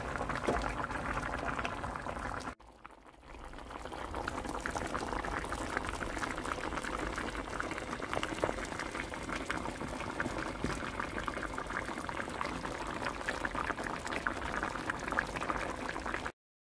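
Tuna and tofu stew boiling hard in a pot, a dense bubbling and popping. It drops out briefly about two and a half seconds in, fades back up, and cuts off suddenly near the end.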